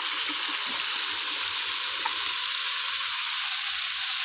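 Chopped carrots, cauliflower and potatoes sizzling steadily in hot oil and masala in a frying pan, just after being added.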